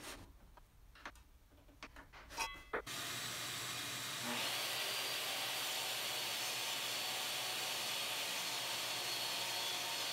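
A few light handling clicks, then a power saw starts and runs steadily, ripping half-inch plywood. The sound turns brighter and hissier about four seconds in, as the blade cuts into the wood.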